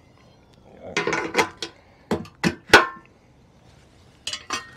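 Small metal parts clinking and knocking as they are handled on a scooter frame: a cluster of sharp clinks about a second in, a few louder ones around two to three seconds, and a pair more near the end.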